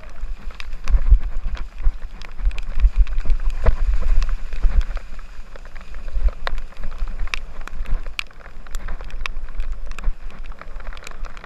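Wind buffeting the microphone of a mountain bike's action camera during a fast descent on a rough dirt trail, as a gusting low rumble. Frequent sharp rattles and clicks from the Rockrider 9.1 mountain bike and its tyres jolting over the rough ground.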